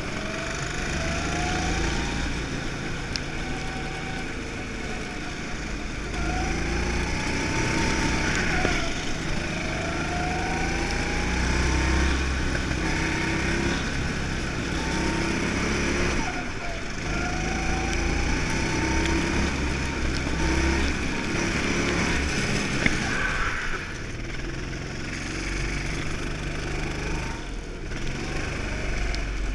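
Go-kart engine heard from the driver's seat during a lap, its pitch rising as it accelerates along each straight and falling back into each corner, every two to three seconds.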